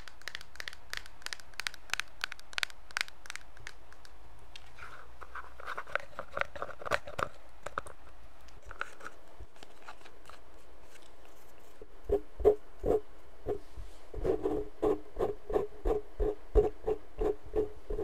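Close-miked ASMR sounds: fingernails tapping and scratching on a plastic cosmetic jar, many quick clicks at first. About two-thirds of the way in comes a run of heavier, deeper taps at roughly three a second.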